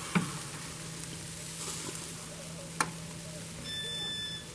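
T-bone steaks sizzling on a hot grill grate, with two sharp clacks of metal tongs, one right at the start and one a little under three seconds in.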